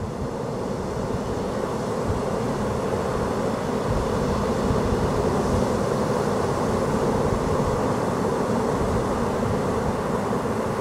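Steady rush of sea surf and wind, swelling up over the first couple of seconds and then holding even.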